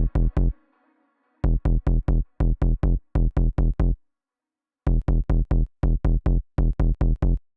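Electronic music: a fast run of heavy, punchy drum-machine hits, about four a second, stopping dead twice for a short silence before starting again.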